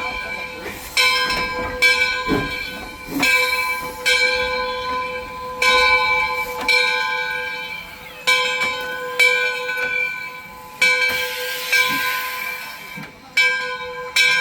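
Steam locomotive bell ringing over and over, about one stroke a second, each stroke ringing on into the next. Near the end a hiss of steam rises for a moment.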